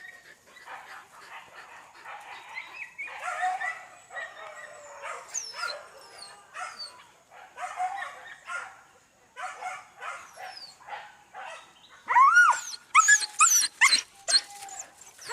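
Hunting dogs barking over and over, with a burst of loud, high yelps about twelve seconds in.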